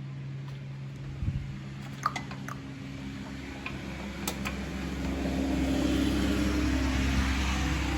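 Racing lawn mower's small engine running, with a few sharp clicks in the first half and growing louder from about five seconds in. The owner believes the engine has rod knock.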